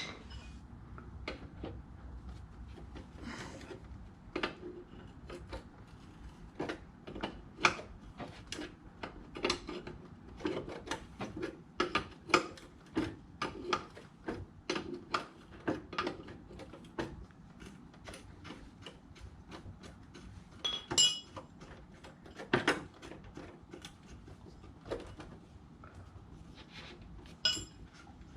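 Metal hand tools clicking and clinking against fittings in an irregular run of short, sharp clicks and knocks, as old air-conditioning lines and parts are being undone.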